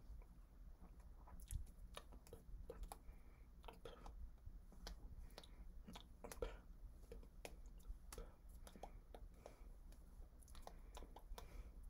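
Near silence, with faint, irregular soft clicks and taps from a person signing: hands touching and brushing, and mouth movements.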